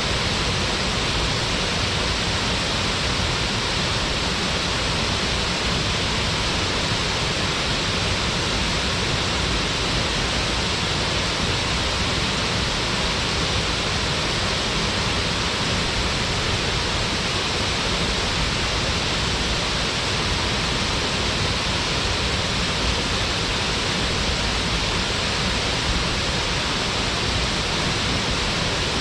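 Waterfall: water falling and splashing into its pool in a steady, even rush.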